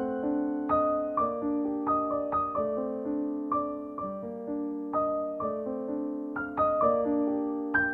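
Gentle background piano music: single notes and chords struck at an even, unhurried pace, each left to ring and fade.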